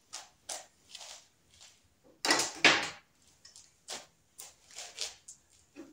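Scattered clicks, knocks and rustles of tools and parts being handled, with two louder rattling knocks a little over two seconds in.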